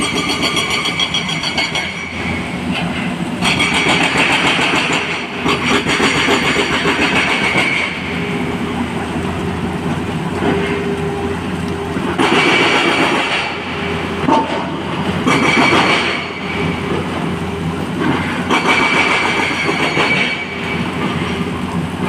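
Heavy diesel machinery at work: a SANY SY225 excavator running steadily, its sound swelling in spells every few seconds as the machine works, with a clattering, rattling texture throughout.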